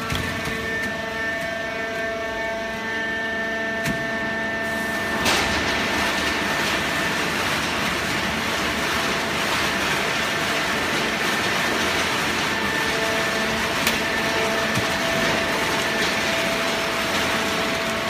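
Horizontal hydraulic waste paper baler running: a steady machine hum with several held tones. About five seconds in, a louder, even rushing noise sets in and holds.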